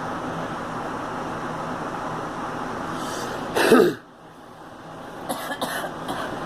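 A girl coughs once, loud and harsh, about three and a half seconds in, over a steady background hum. Right after, the hum drops away, and a few short sharp sounds come near the end.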